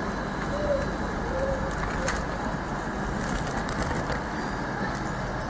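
Steady rumble of a passenger train pulling away along the station tracks. A pigeon coos briefly twice in the first couple of seconds, and a few sharp clicks sound around the middle.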